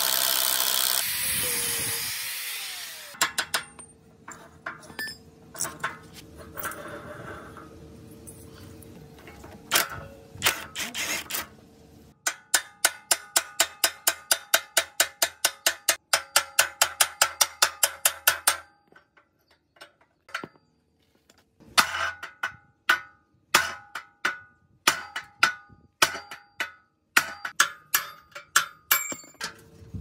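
A power tool runs for the first two seconds, driving a gear puller. After a quiet stretch come metal-on-metal hammer blows on a steel gear and shaft: a fast even run of about five strikes a second, a short pause, then more irregular strikes.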